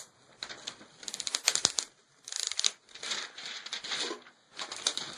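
Plastic cover of a replacement laptop LCD panel crinkling as it is handled and taken off. There is a quick run of sharp clicks about a second in, followed by several short rustles.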